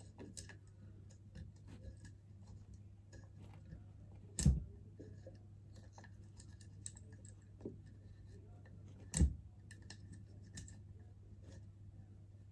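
A salt lamp being handled as its bulb fitting is worked into the base: faint scratching and small clicks, with two louder knocks about four and a half and nine seconds in.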